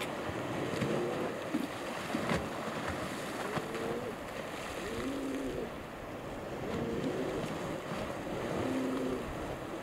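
Sea waves washing in against the shore, with wind.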